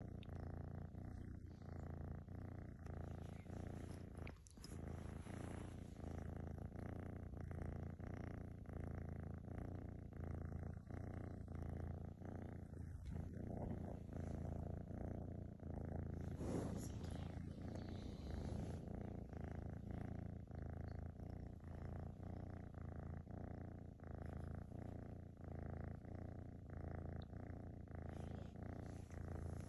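A half–Maine Coon tortoiseshell kitten purring steadily and rhythmically, close to the microphone.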